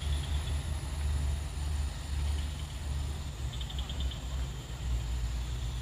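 Heavy diesel truck engine running at low revs, a low steady rumble.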